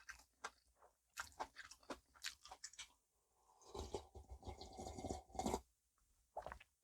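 Close-miked chewing of namul bibimbap: soft, crisp crunches in quick irregular clicks, with a denser, louder stretch of chewing noise about four seconds in.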